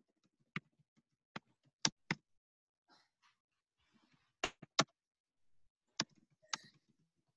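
Computer keyboard keystrokes typed in short runs: about nine sharp clicks at irregular spacing, heard faintly over a video-call line.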